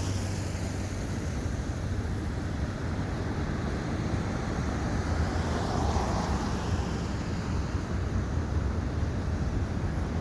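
Freight cars rolling past at speed: a steady rumble of wheels on rails with an even roar over it, no horn or single clanks standing out.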